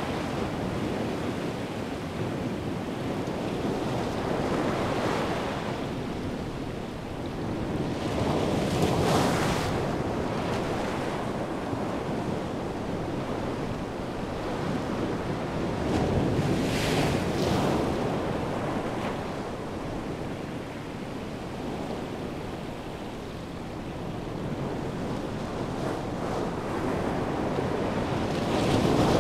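Ocean surf: a steady rush of breaking waves that swells louder every several seconds as sets come in, mixed with wind.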